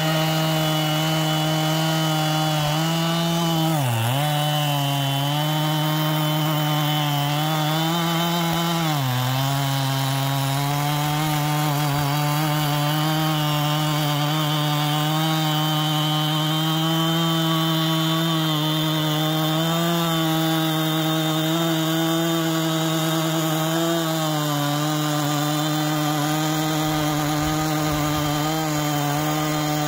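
Two-stroke chainsaw with a 20-inch bar and ripping chain, held at full throttle in a chainsaw mill as it rips lengthwise through a log. Its steady high note sags in pitch twice, about four and nine seconds in, as the engine bogs under the cut, and recovers each time.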